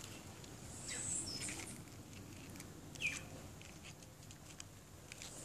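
A few short high bird chirps, one about a second in and one falling in pitch around the middle, over a faint steady high drone and light ticking.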